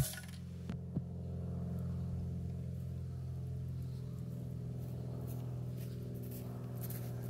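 A single sharp crack at the very start from a Ruger Targis Hunter Max air-rifle shot at a tin can, followed by two faint ticks about a second in. A steady low mechanical hum runs underneath throughout.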